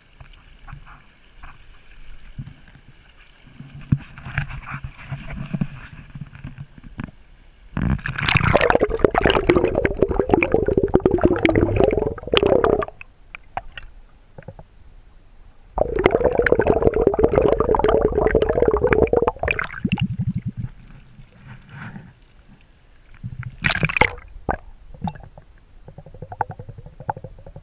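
Water sloshing and splashing in two loud stretches of about four to five seconds each, with quieter gurgling and bumps between them.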